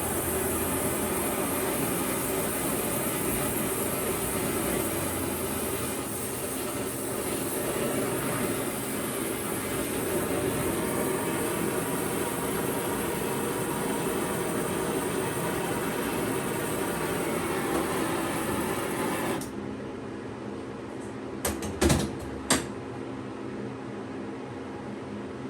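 A big torch burning with a steady hiss while it melts metal, shut off suddenly near the end, then a few sharp knocks.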